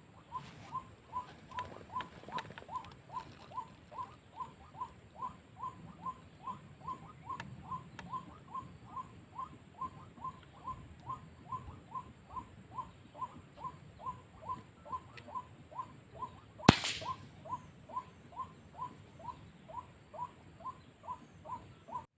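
Repeated waterhen-type call notes, short and each falling slightly in pitch, at a steady rate of about two a second, with one loud, sharp shot about three-quarters of the way through; the calling carries on unchanged after the shot.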